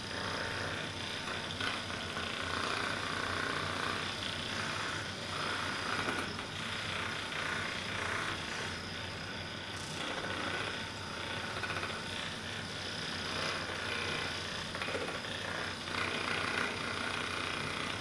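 Percussive massage gun running, its head hammering rapidly against the leg around the knee. The motor's steady buzz swells and fades a little as the gun is pressed in and moved.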